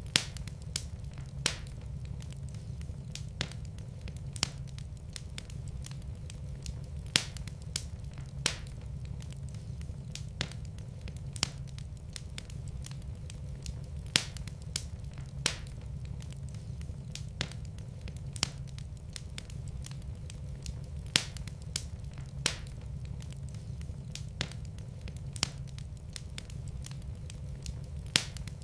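Wood fire crackling in a fireplace: sharp pops at irregular intervals, about one or two a second, over a steady low rumble.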